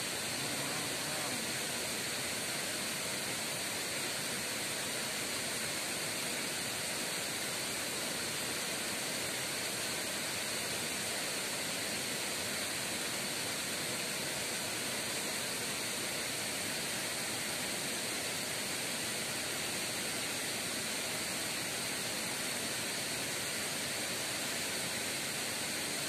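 Waterfall: the steady rush of falling water, an even hiss that does not change.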